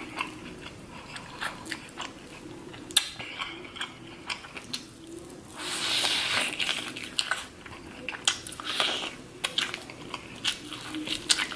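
Close-up eating sounds of corn on the cob being bitten and chewed: short wet clicks and crunches, with a louder noisy rush of sucking or slurping about halfway through.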